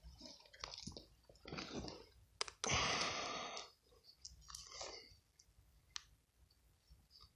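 Crunchy scraping and rustling of a hand pulling sand and soil off a buried, rotted leather bag, in several short bursts with a few sharp clicks; the loudest burst lasts about a second, about three seconds in.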